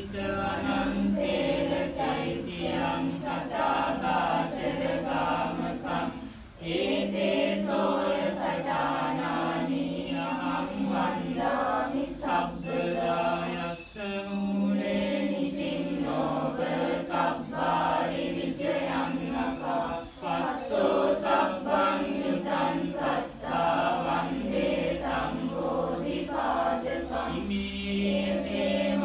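A group of voices chanting together in a steady recitation, Buddhist devotional chanting, with brief breaks about six and a half and fourteen seconds in.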